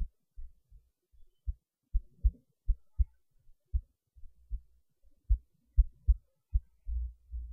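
Heartbeat recorded close up: dull low thumps, about two a second, with a longer low rumble about seven seconds in.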